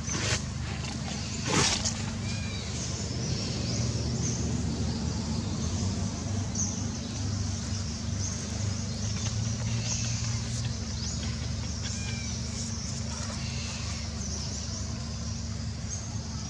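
Outdoor ambience: a steady low hum with scattered short, high chirps throughout. Two sharp knocks come near the start, the louder about a second and a half in.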